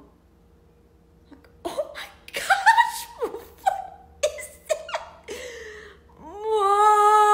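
A woman laughing in a string of short bursts, then near the end a long, drawn-out vocal sound.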